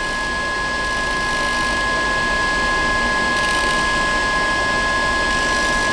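A small motor giving a steady whir with two constant high whining tones.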